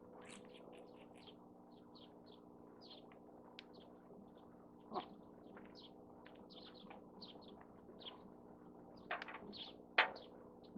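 Small birds chirping repeatedly in short high calls, over a steady low hum. A few sharp knocks stand out, one about five seconds in and the loudest near the end.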